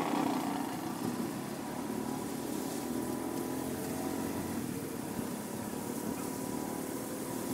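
Motor tricycle's motorcycle engine running steadily as it drives along.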